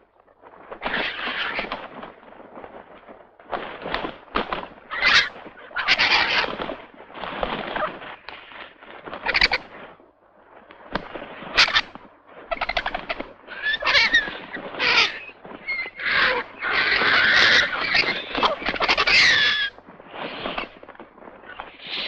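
A crowd of vultures squabbling over a carcass: harsh hissing and rasping calls in irregular bursts, with a few squealing calls that slide in pitch in the second half.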